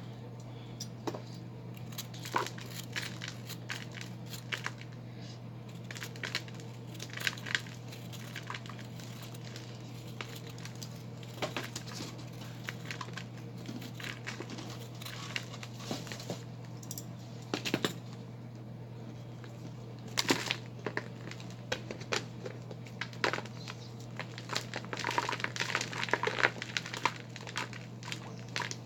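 Hard-packed balls of Ajax and Foca cleaning powder being crunched and broken apart, giving irregular sharp crunches and crackles that come thicker near the end. A steady low hum runs underneath.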